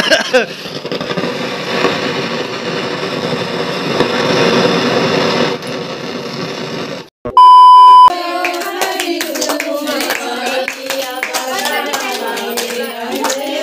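Old CRT television's speaker crackling and hissing for about seven seconds, the noise of a loose AV cable connection that the owner thinks needs a new cord. It cuts out, a loud steady beep sounds for under a second, and then a group of women sing folk songs.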